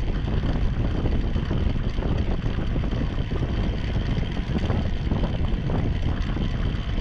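Wind rushing over the microphone of a bike-mounted camera riding at about 30 km/h: a steady, deep rumble of noise.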